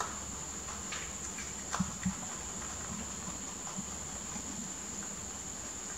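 Rabbits nibbling leafy green stems, with a few short crisp crunches in the first two seconds, over a steady high-pitched whine.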